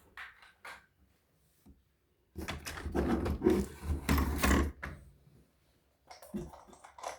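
A few light knocks, then about two and a half seconds of louder clattering and scraping as objects are handled, then a few more knocks near the end.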